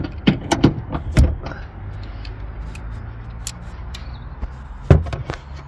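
Irregular clicks and knocks of tools and metal seat-belt anchor hardware being handled as the anchor nuts are undone, with one loud knock about five seconds in, over a steady low hum.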